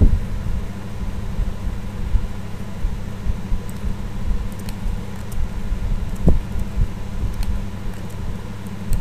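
Steady low hum of background room noise picked up by the microphone, with a few faint clicks in the second half.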